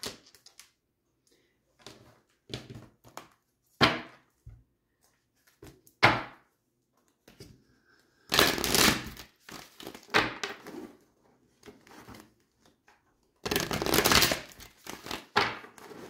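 A deck of oracle cards being handled and shuffled: scattered light taps and clicks of the cards, with two longer stretches of shuffling about eight and thirteen and a half seconds in.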